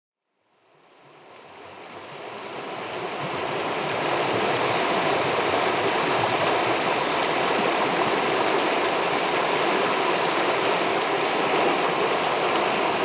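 Flowing river water: a steady, even rush that fades in over the first few seconds.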